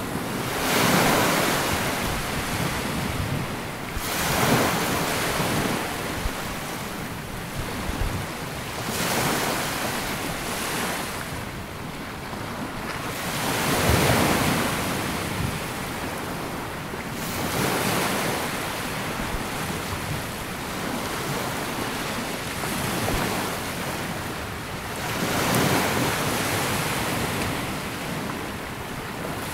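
Sea waves breaking and washing up a sandy beach, one after another every three to four seconds, with a steady hiss of surf between them.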